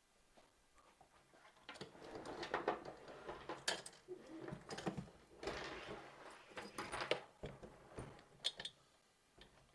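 Irregular metal clattering, rattling and clicking as a steel quick-release bicycle rack is handled, the noise going on for several seconds and stopping near the end.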